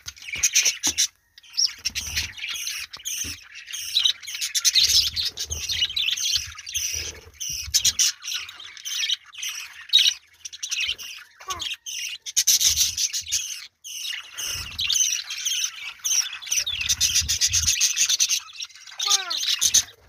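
A flock of budgerigars chattering and chirping without a break, a dense mix of quick high warbling notes, with a few sharper squawks dropping in pitch.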